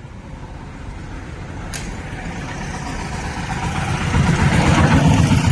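A motor vehicle running and growing steadily louder, with a low rumble that is strongest near the end, and one short click about two seconds in.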